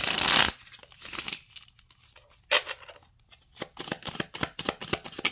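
Tarot deck drawn out of its cardboard box with a loud papery scrape, followed by a few more rustles, then the cards shuffled by hand in a quick run of clicks and slaps in the last couple of seconds.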